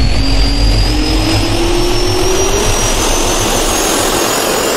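Jet turbine spool-up sound effect: a steady rush of air with a thin whine that slowly rises in pitch.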